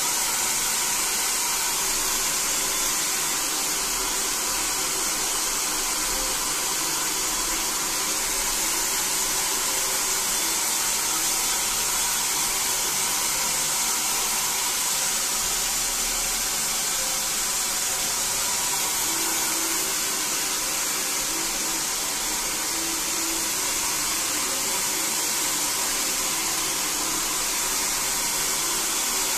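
Handheld hair dryer running steadily, a high rushing hiss of air blown onto wet hair.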